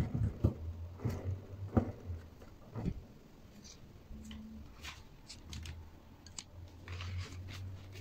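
Irregular knocks and clicks as a hand turns the rotor of a homemade generator built from microwave-oven transformer cores, over a low steady hum. The knocks come mostly in the first three seconds, with sparser sharp clicks later.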